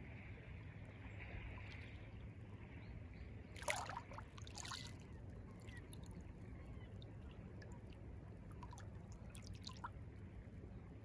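Small waves lapping softly at the edge of a calm bay, with a couple of short splashes about four seconds in.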